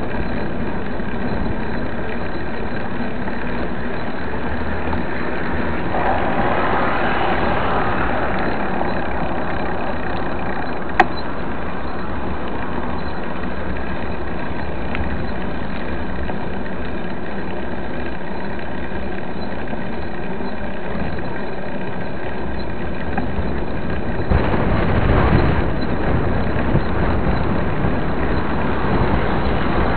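Road traffic going by: a steady rush of passing cars, with one vehicle swelling past about 7 seconds in and a louder, lower-rumbling one about 25 seconds in. A single sharp click sounds about 11 seconds in.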